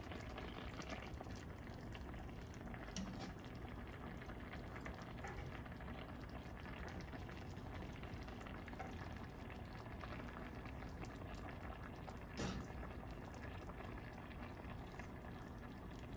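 Pan of rice, vegetables and chicken in broth-based green sauce simmering, with a steady soft bubbling and crackle. One louder knock about three-quarters of the way through.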